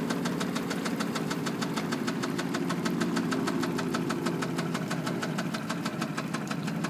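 Yamaha F225 V6 four-stroke outboard idling with a rapid, regular knocking over the engine hum: the sign of a rod knock.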